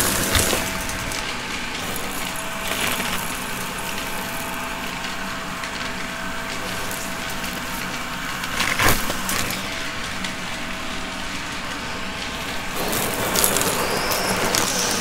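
Crunching and crackling over a steady motor hum, with louder crunches at the start, about nine seconds in, and near the end.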